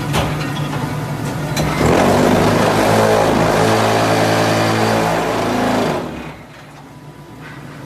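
Automatic hydraulic paving block press machine running. There is a knock right at the start. About two seconds in, a loud steady mechanical hum sets in and lasts about four seconds, then falls away to a quieter running noise.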